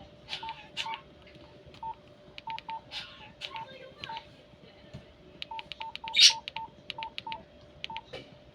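Short electronic key beeps, all on one pitch, come at irregular intervals as buttons on a device are pressed. Small clicks fall among them, and a louder brief noise comes about six seconds in, over a faint steady hum.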